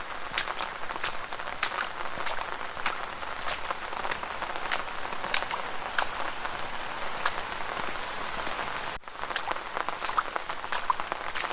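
Steady rain falling on wet ground, with frequent sharp drip and splash ticks scattered through it. The sound drops out briefly about nine seconds in.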